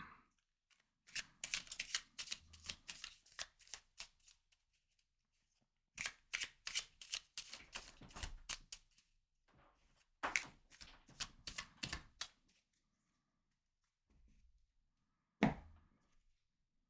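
A tarot deck being shuffled by hand in three bursts of quick card flicks, with short pauses between, then a single sharp tap near the end.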